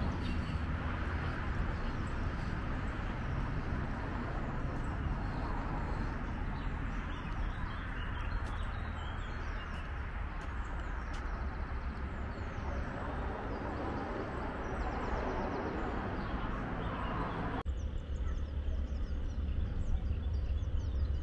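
Outdoor ambience: small birds chirping over a steady low rumble. The background changes abruptly about eighteen seconds in.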